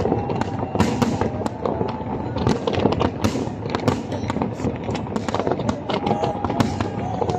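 Fireworks display: a dense, continuous barrage of bangs and crackles from many shells bursting at once, several a second.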